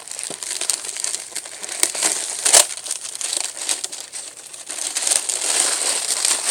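Plastic packaging crinkling and rustling as the wrapped contents of a new airsoft gun box are opened and handled, with a sharper crackle about two and a half seconds in.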